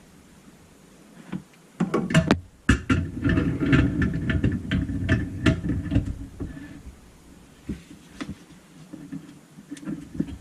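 Clicks, knocks and clatter of sink and drain parts being handled and fitted, starting about two seconds in and thinning out near the end.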